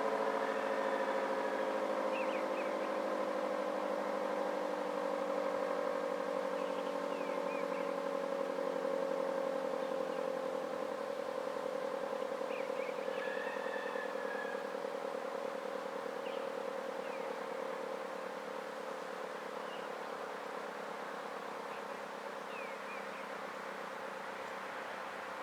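Federal Signal Model 5T outdoor warning siren with a 9/12-port chopper sounding a steady two-note chord that slowly drops a little in pitch and fades gradually. Faint bird chirps come through now and then.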